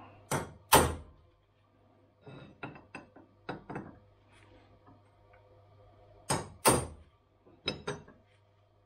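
Hammer blows on a steel punch, staking a homemade heim joint part held in a bench vise to lock it in place. Two sharp metallic strikes, a run of lighter taps about two seconds in, then four more sharp strikes near the end.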